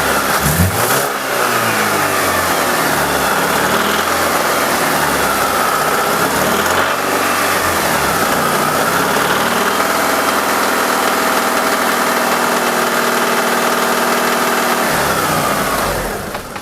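Alfa Romeo 166's 2.0 Twin Spark four-cylinder engine running with its variable valve timing solenoid disconnected. It is revved up and down several times, then idles steadily, and is switched off near the end. The knocking from the top of the engine is still there, which rules out the timing and the cam phaser; the mechanic fears worn connecting-rod bearings.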